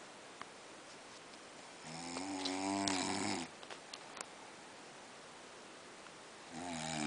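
A man snoring in his sleep: one long, pitched snore about two seconds in, lasting about a second and a half, then another beginning near the end.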